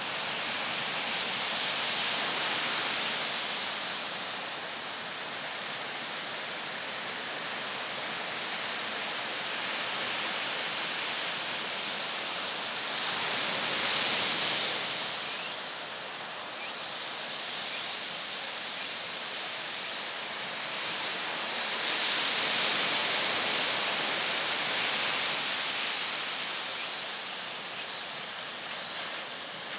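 Ocean surf: a steady wash of breaking waves that swells louder three times as waves break.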